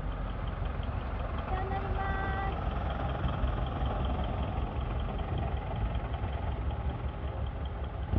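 Diesel engines of large decorated trucks running steadily at low speed, a dense low rumble, with a short pitched tone sounding for about a second around two seconds in.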